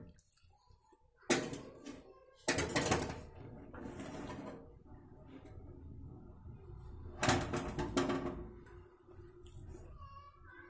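Metal clatter of a wire oven rack with an aluminium cake tin on it being pulled out of a countertop oven and set down: a sharp rattle about a second in, a longer clatter near three seconds, and another around seven to eight seconds.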